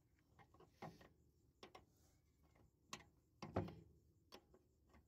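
Quiet, scattered metallic clicks and clinks of a spanner working a nut and bolt on a straw reaper's bell crank, about six in all, the loudest about three and a half seconds in.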